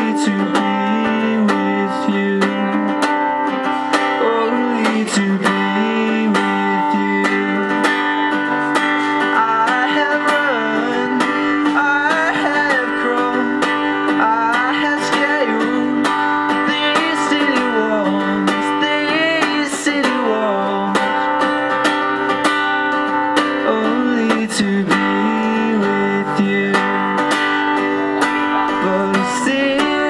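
Background music: acoustic guitar played with a steady strum, with a repeating bass line.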